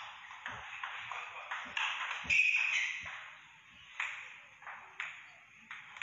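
Table tennis rally: the plastic ball clicking off paddles and table in quick succession, the loudest hit a little over two seconds in, then a few scattered taps of the ball after the point ends.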